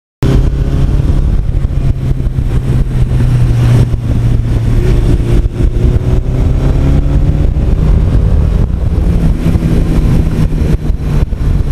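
1982 Suzuki GS1100E's air-cooled inline-four engine running as the bike rides along a road, with wind and road noise at the handlebars. Its note rises a little about halfway through.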